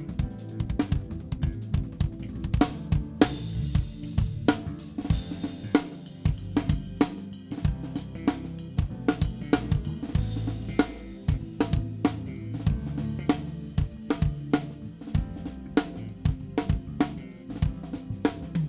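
Live drum kit played busily, with snare, kick drum, hi-hat and cymbal hits, over an electric bass line.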